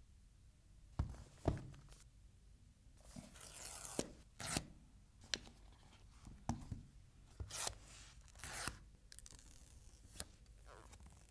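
An iPhone box being unboxed by hand: the paper seal strips tearing, then scattered light knocks and rustles as the box and phone are handled. Near the end the protective film is peeled off the phone's screen.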